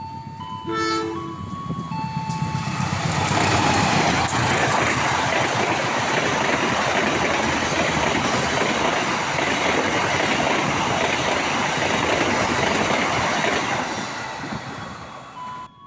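A diesel-electric locomotive-hauled train passing close by. The rumble of the train and its wheels builds over the first few seconds, holds steady and loud, then fades and cuts off near the end.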